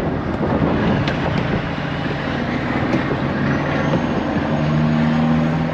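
Semi-truck diesel engine running steadily at idle, a low constant rumble.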